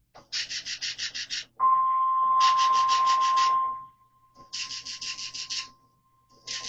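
Emergency Alert System test signal on a NOAA Weather Radio broadcast. Buzzy bursts of rapid data pulses, each about a second long, repeat about every two seconds. A steady single alert tone comes in about a second and a half in, loud at first and then fainter underneath.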